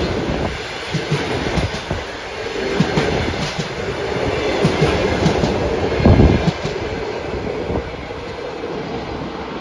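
Passenger coaches running past at speed, with a continuous rushing noise and the wheels knocking irregularly over rail joints. A heavier knock comes about six seconds in, and the sound eases a little as the last coach pulls away.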